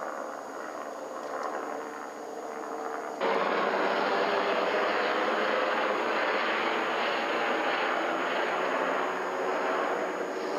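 Helicopter in flight: a steady rushing noise that jumps louder at an abrupt cut about three seconds in.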